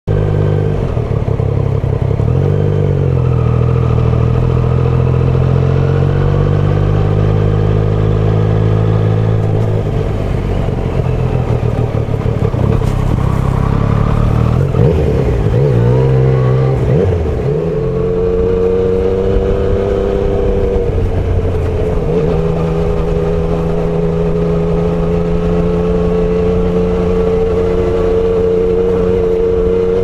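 Yamaha MT-09 Tracer's inline-three engine running under way, heard from a microphone in the rider's jacket pocket. Its pitch rises and falls with the throttle, dipping and climbing again about halfway through, then holds nearly steady at a cruise.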